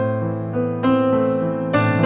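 Background piano music, with new chords struck about once a second.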